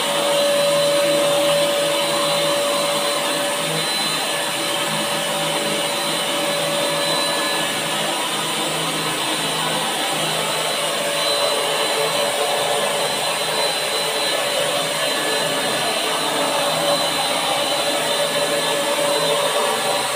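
Buildskill BPS1100 650 W HVLP paint sprayer running steadily while spraying paint: the turbine blower's even rush of air with a faint steady whine, the sound of the machine atomising paint through the gun.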